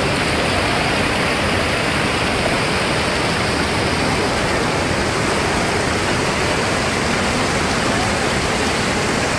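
Fast mountain river rushing over boulders: a steady, unbroken white-water rush.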